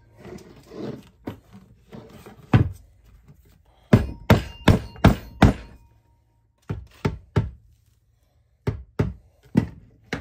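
Rubber mallet tapping the barrel of a Traditions Kentucky flintlock rifle kit down into its wooden stock: dull thunks, a single one first, then quick runs of five, three and four taps. Softer handling noise comes before the taps.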